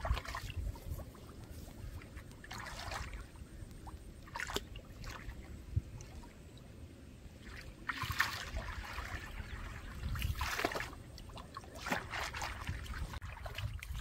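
Legs wading through shallow muddy water, sloshing and splashing at irregular steps every couple of seconds, with a low steady rumble underneath.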